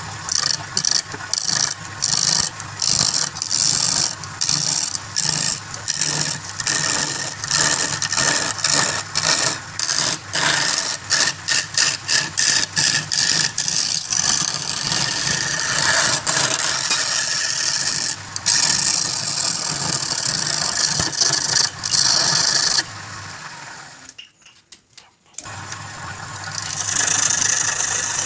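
Wood lathe running, with a turning tool cutting a spinning wood blank. The scraping cut comes in rapid pulses at first, then runs steady, breaks off for about a second near the end and starts again.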